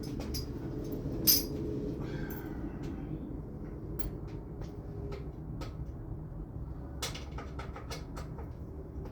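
Scattered light metallic clicks and clinks of bicycle parts and hand tools being handled during a stem and handlebar swap, with one sharper click about a second in and a quick cluster near the end, over a steady low hum.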